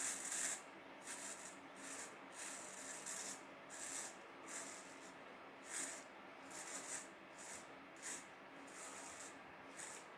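Wilkinson Pall Mall safety razor scraping through stubble in a series of short strokes, about one or two a second, faint and raspy.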